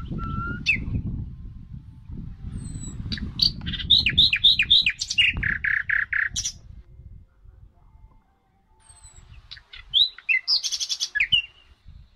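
A songbird sings two phrases. The first is a run of quick falling whistled slurs that turns into about five repeated lower notes. After a pause of a few seconds comes a shorter burst of chirps near the end. A low rumble runs underneath through the first half.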